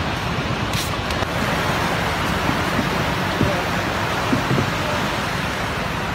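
Steady wash of surf breaking on a sandy beach, an even rushing noise.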